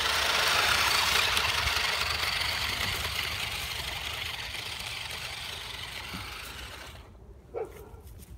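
Toy RC monster truck's motor and drivetrain whirring as it drives up a dirt bank. The sound fades as the truck moves away and stops about seven seconds in.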